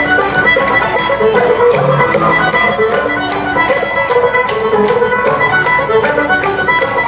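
Irish folk band playing live with no singing, a fiddle carrying the tune over banjo and guitar strumming and a steady beat.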